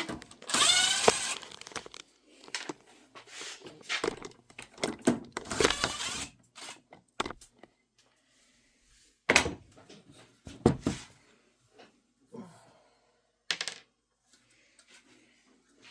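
Tape being peeled off a plexiglass sheet: a squeaky ripping pull about a second in, then scattered short tearing sounds and knocks of the plastic being handled.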